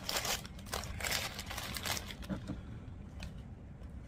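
Paper food wrapper rustling and crinkling as a chalupa is handled, in bursts through the first two seconds, then a few fainter handling clicks over a low steady hum.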